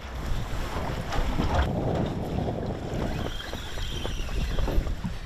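Wind buffeting the microphone over choppy open water, with water slapping against a small boat and a few light knocks.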